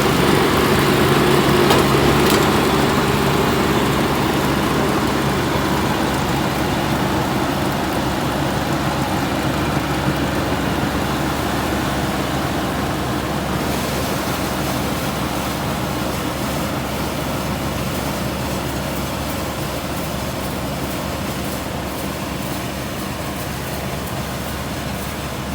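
Rice combine harvester running steadily, its engine drone mixed with a continuous mechanical hum that slowly grows quieter.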